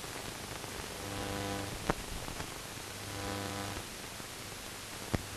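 Steady hiss with a buzzing hum that fades in and out twice, and two sharp clicks: the noise floor of a silent newsreel's transfer, with no recorded sound of its own.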